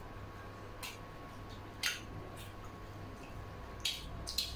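People chewing food, with a few short, sharp mouth clicks, over a steady low hum.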